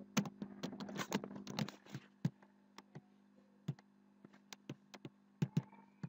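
Computer keyboard typing: a quick run of keystrokes over the first two seconds, then a few scattered single clicks.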